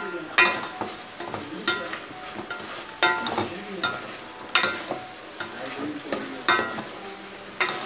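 A spatula stirring chicken pieces in an aluminium pot, knocking sharply against the pot's side every second or two, with sizzling underneath.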